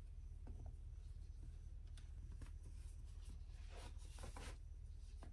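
Faint rustling of a knit fabric top being gathered and adjusted by hand, a few soft rustles with the clearest about four seconds in, over a low steady hum.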